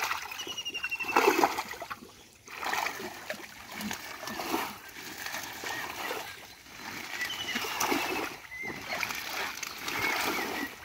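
Shallow muddy water splashing and sloshing in irregular bursts as a person wades and works by hand among water hyacinth, pulling up the plants.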